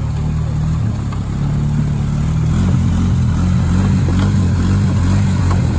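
2015 Honda Rancher 420's single-cylinder four-stroke engine revving under load while its wheels spin and churn creek water, the ATV stuck in the creek bed. From about halfway the revs rise and fall over and over, about two to three times a second, as it rocks against the push.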